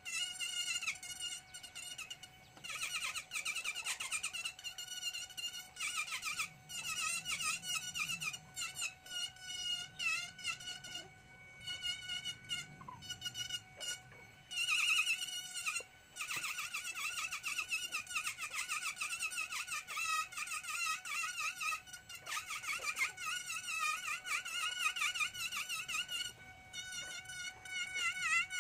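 Small handheld electric rotary carving tool whining as its bit cuts fine detail into ngọc am (Fokienia) wood. The pitch wavers continually as the bit bites into the wood, and the tool drops out briefly a few times.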